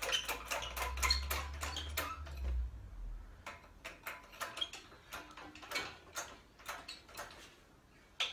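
Hydraulic shop press being pumped to push a hub out of a lorry brake drum: a steady run of light mechanical clicks, about three a second, with a low rumble in the first few seconds.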